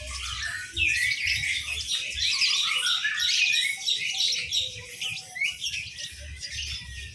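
Many caged songbirds chirping and squawking at once, a dense overlapping chatter of short high calls.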